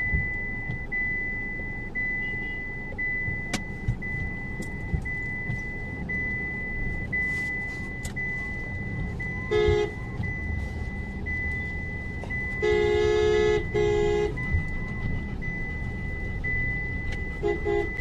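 Vehicle horns honking in a slow traffic jam, heard from inside a car: a short honk about ten seconds in, two longer honks back to back about three seconds later, and a brief one near the end. A steady low cabin and road rumble runs underneath.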